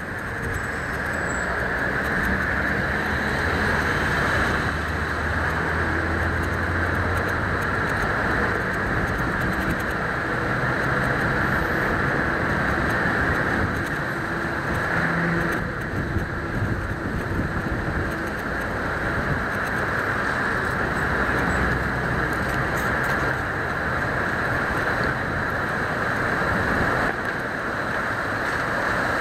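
Steady road traffic noise of cars passing on a multi-lane road, with the low engine hum of a passing car strongest in the first several seconds.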